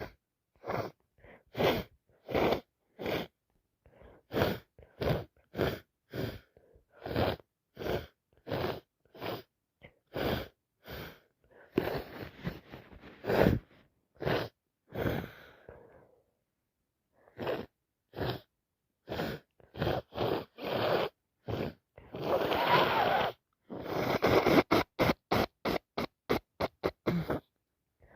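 A person with a heavy head cold making a long run of short, sharp sniffs and gasping breaths, about two a second, with a few longer, noisier blasts of breath through the nose in the middle and near the end, then a quick flurry of sniffs.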